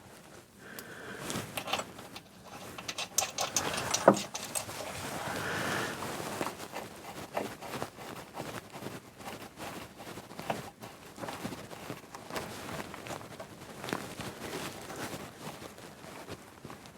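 Small metal parts and hand tools clinking and scraping during hands-on assembly of a car component, with one sharp metallic knock about four seconds in.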